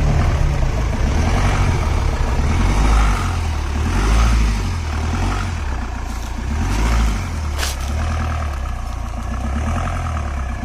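Off-road jeep's engine running with a low rumble that swells and eases as it pulls, with a brief sharp click or knock a little past halfway.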